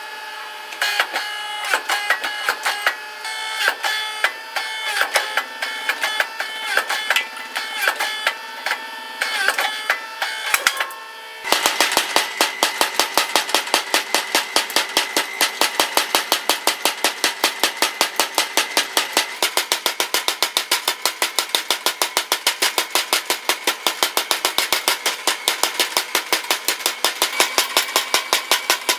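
Background music, then about eleven seconds in a machine starts hammering fast and evenly, several blows a second, typical of a mechanical power hammer drawing out hot steel.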